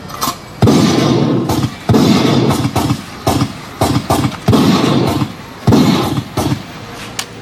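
A series of loud gunshots at uneven intervals, about six big ones, each starting sharply and ringing on for up to a second, with fainter bangs between them.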